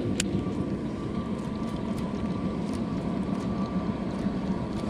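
A boat's motor running with a steady hum and a thin, even whine, with one sharp click about a quarter of a second in.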